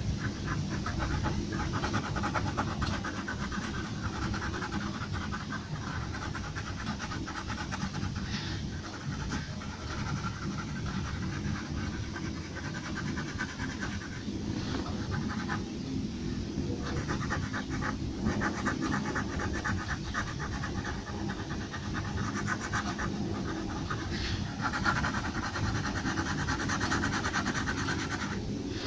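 Pencil scratching on paper in rapid back-and-forth shading strokes, in stretches with short pauses, over a steady low background rumble.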